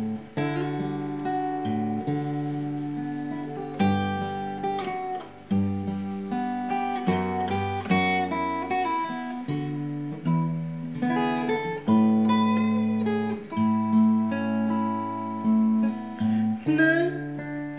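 Cutaway acoustic-electric guitar playing a continuous instrumental passage of plucked chords and single-note melody lines, with no singing.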